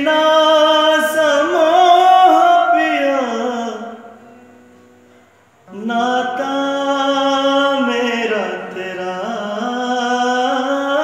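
A man singing long held notes, unaccompanied, in two drawn-out phrases. The first phrase fades out about three and a half seconds in, and the second starts about two seconds later.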